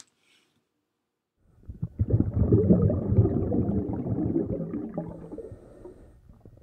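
Outro sound effect over the end screen: a low, rough noise that comes in about a second and a half in, swells quickly, then fades away over several seconds.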